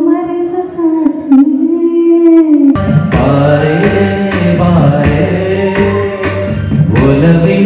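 A singer holds one long, slightly wavering note alone, amplified through a microphone. Nearly three seconds in, instrumental accompaniment comes in and a male voice sings a melody over it.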